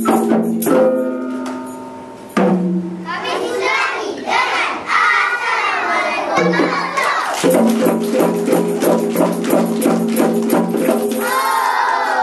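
Young children singing a dikir song together over recorded backing music of held low notes and a steady, sharp percussion beat.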